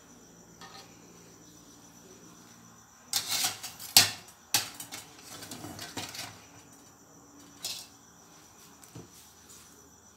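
Metal kitchenware clattering: a steel slotted spatula knocking against a steel wok and set aside, a run of sharp clanks about three to four seconds in, the loudest about four seconds in, then lighter knocks and one more clank near the end.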